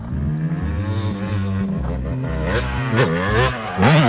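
Yamaha YZ250 motocross bike's engine revving up and down through the gears as it rides the track, loudest near the end as the bike comes close, over background music.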